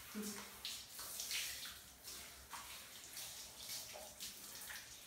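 Water from a handheld shower spraying onto a wet golden retriever's coat and the shower floor, coming in uneven splashy surges as the fur is rubbed.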